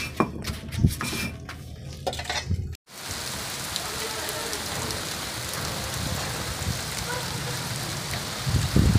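A few uneven knocks and clinks, then, after a cut, steady rain falling on a bare packed-earth yard as an even hiss. A brief low rumble comes near the end.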